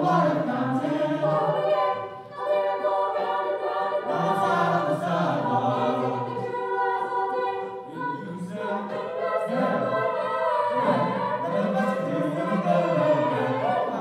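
A mixed choir of young men and women singing together in harmony at microphones, holding sustained chords that shift in pitch, with brief breaks between phrases.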